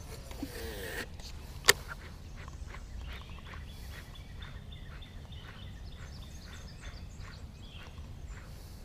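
Baitcasting reel on a cast and retrieve: line hisses off the spool at the start, a single sharp click comes just under two seconds in, then the reel gives a steady run of rapid ticks as it is cranked in.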